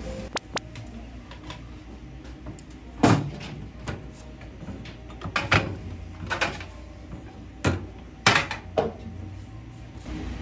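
Sharp metal knocks and clanks from a taiyaki griddle as its hinged iron mould plates and tools are worked: about seven knocks spread out, the loudest about three seconds in, over a low steady hum.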